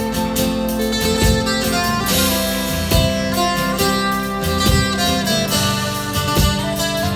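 Live instrumental medieval folk rock band playing: strummed guitar and melody over a steady low drone, with regular drum hits.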